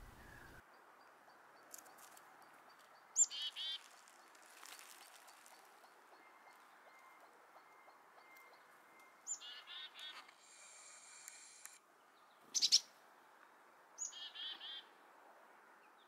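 Wild songbird calls over a faint steady hiss: three times, a short high note followed by a few quick lower notes, plus a brief high buzzy sound. One sharp click, the loudest sound, comes near the end.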